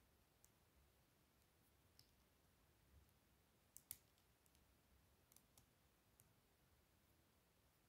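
Faint, scattered clicks of small Lego plastic pieces being handled and snapped into new positions as a mini transforming robot model is folded by hand, with the loudest, a quick double click, about four seconds in.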